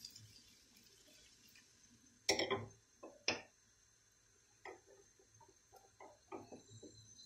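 Hot fat crackling and spitting in a small frying pan, with two sharp knocks about two and three seconds in.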